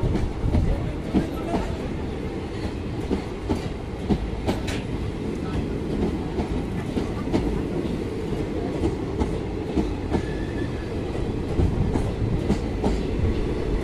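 Indian Railways express passenger coaches rolling past as the train pulls out of the station. The wheels clack irregularly over rail joints above a steady low rumble.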